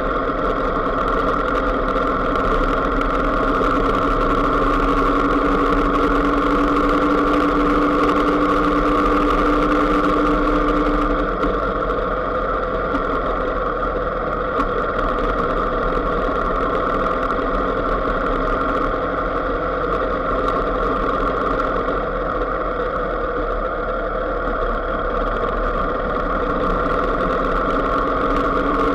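Engine of a moving road vehicle running steadily under way. Its hum rises slightly in pitch over the first ten seconds or so, then settles into an even drone.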